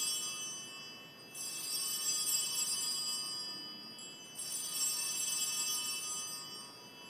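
Altar bells rung at the elevation of the chalice during the consecration: one ring dying away, then two more rings about three seconds apart, each fading slowly.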